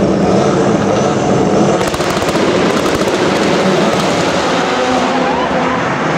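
Ford Fiesta RS WRC rally car's turbocharged 1.6-litre four-cylinder engine revving hard as the car drifts, with tyres squealing. A rapid crackle of exhaust pops comes about two seconds in.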